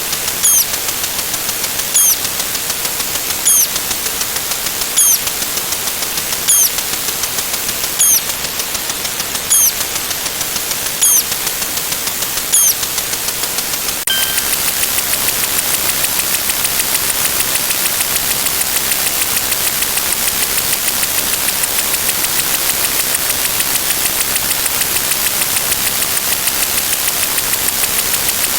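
A steady hiss with a short high chirp about every second and a half. About halfway through, the chirps stop and the hiss turns louder and denser, with fine rapid ticking.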